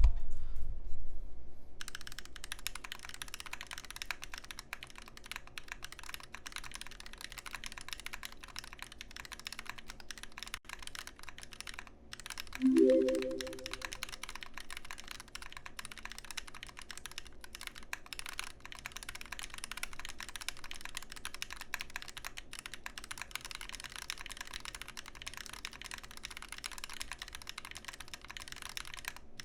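Typing on a TMOv2 mechanical keyboard with lubed Husky linear switches on a brass plate and GMK keycaps: a steady stream of quick keystrokes, starting about two seconds in. There is a thump at the very start and a short rising tone about thirteen seconds in.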